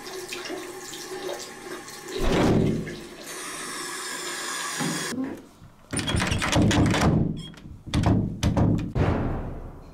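Water running and splashing in a bathroom washbasin, then a run of heavy thunks and rattles from a door lever handle being grabbed and yanked.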